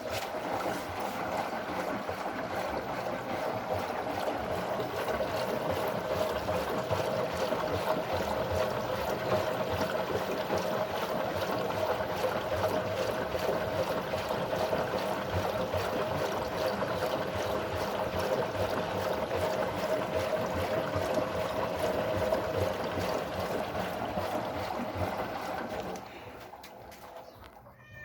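Washing machine on a test run, with a steady rush of water in the machine that starts suddenly and tails off near the end.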